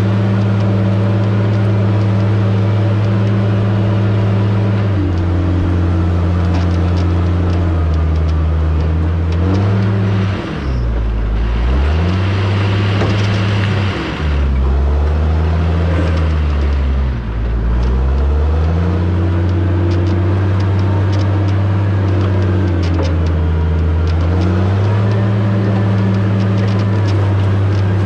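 Diesel engine of a John Deere logging machine working under varying load, its revs falling and rising again several times and dipping lowest three times in the middle, with a few faint metallic clicks near the end.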